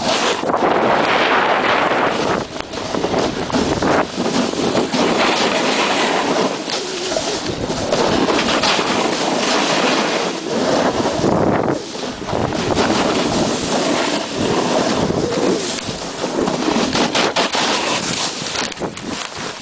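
Snowboard sliding and turning through deep powder snow: a loud, continuous rushing hiss that swells and fades with each turn, with scraping streaks, mixed with wind on the camera microphone.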